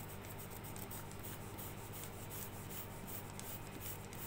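Tips of pointed scissors scraping and gouging along the grain of a thin balsa wood gate to rough it up: faint, quick, repeated scratching.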